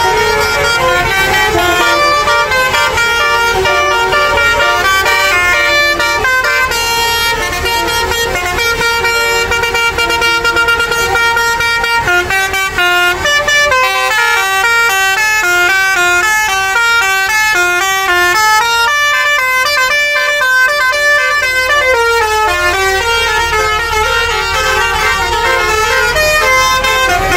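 Indonesian tour buses' basuri musical air horns playing tunes, loud held chords at first, then from about halfway a quick melody of notes stepping up and down, going back to long held notes near the end.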